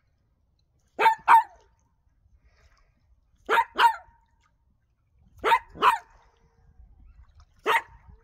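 Dog barking in quick pairs about every two seconds, three pairs and then a single bark near the end.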